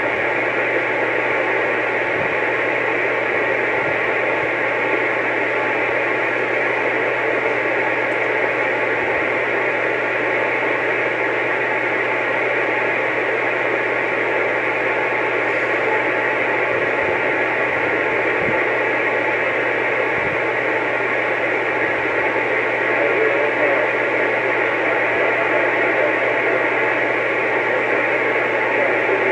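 CB radio receiver hissing steadily with static, its squelch open and no voice coming through, over a steady low hum.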